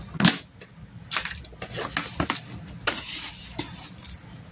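Cardboard oats canister with a plastic lid being handled and shaken. The oats inside give a run of short, irregular rustling, crunching scrapes and knocks.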